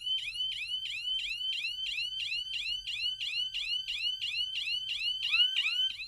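Electronic alarm siren set off by a microwave radar motion sensor through a relay. It sounds a rapid, repeating rising chirp, about four sweeps a second, and is partly covered to muffle it.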